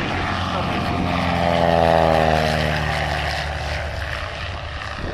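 Single-engine propeller light aircraft flying a low pass: the engine and propeller drone swells to its loudest about two seconds in, its pitch sliding down as the plane goes by, then fades.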